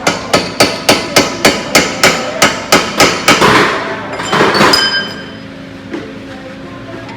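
Rapid hammer blows, about a dozen at roughly three or four a second, followed by a brief rougher metallic clatter.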